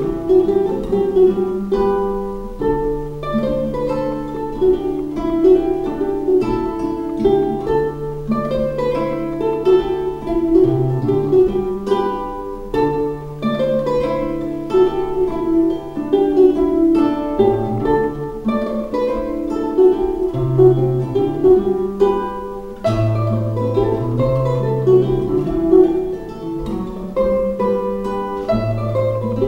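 Ukulele and classical guitar playing a mazurka as a duet: a plucked melody and chords over long, low bass notes that change every few seconds.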